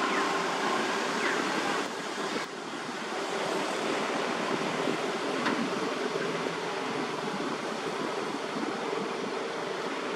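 Steady rushing outdoor background noise, dipping briefly about two seconds in.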